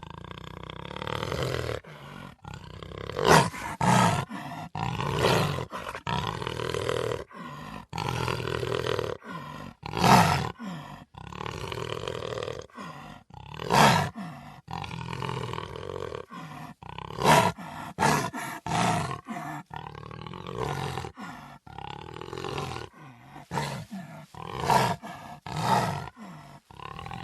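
Cheetah vocalizing over and over: a long string of short calls with brief gaps, several of them much louder than the rest.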